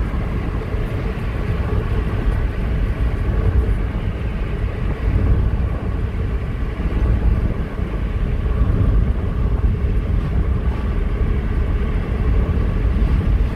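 Steady low rumble of a car being driven, its engine and tyres on the road.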